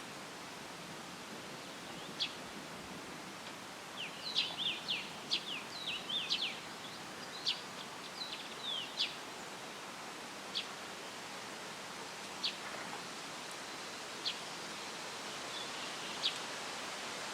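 Small songbird chirping, with a quick run of short falling notes about four seconds in, then single chirps every couple of seconds, over the steady hiss of tree leaves rustling in a light breeze.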